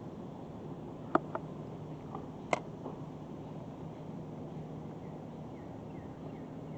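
Steady outdoor background noise with a handful of short, sharp ticks about one to three seconds in, and a few faint short chirps near the end.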